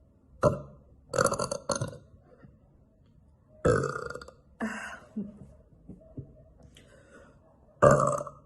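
A woman belching repeatedly: about six separate loud burps with short pauses between, the longest lasting most of a second near the middle and a loud one near the end.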